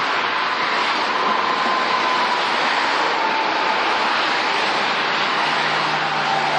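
Steady rush of freeway traffic passing below, mostly tyre noise, with a faint whine slowly falling in pitch from a passing vehicle and a low engine hum coming in near the end.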